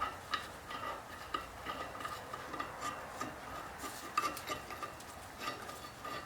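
Light, irregular metal clicks and clinks, a few a second, each with a short ring. These come from steel bolts, tools and the chipper knife knocking against the steel drum of a wood chipper as a flipped blade is set back in and bolted down.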